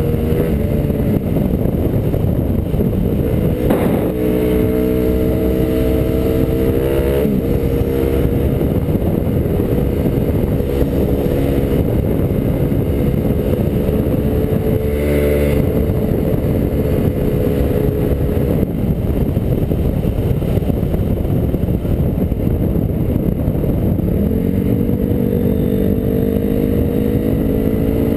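Honda CRF250R's single-cylinder four-stroke engine running at road speed under heavy wind rush on the helmet camera. Its pitch drops at a gear change a few seconds in and climbs steadily near the end as the bike accelerates, with a short knock about halfway through.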